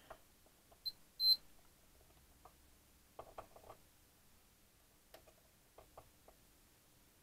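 Digital multimeter's beeper giving two short high beeps about a second in as the test probes touch a transistor's legs, the second louder, followed by light clicks and taps of the probe tips on the circuit board.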